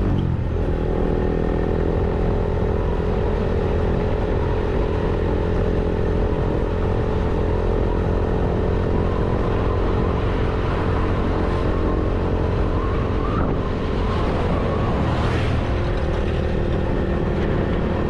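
Vehicle engine running at a steady cruising speed on the road, with tyre and wind noise. Its pitch drops in the first half-second, as at a gear change, then holds steady.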